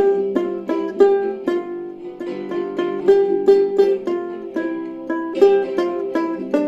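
A plucked string instrument playing a quick, busy melody of picked notes over a steady lower ringing note.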